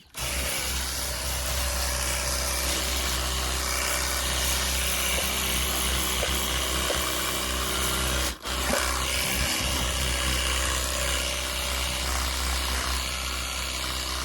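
Rechargeable battery-powered portable pressure washer gun running, its motor pump humming steadily under the hiss of the water jet. It cuts out briefly about eight seconds in, then runs on.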